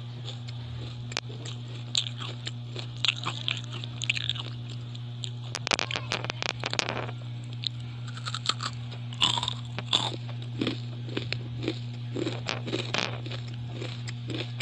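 Ampaw (puffed rice cake) being bitten and chewed close to the microphone, giving irregular crisp crunches and crackles, over a steady low hum.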